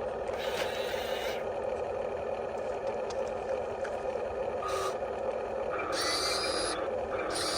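Electric motors of an RC construction model whirring in short spurts of about a second as the controls are worked, over a steady underlying hum.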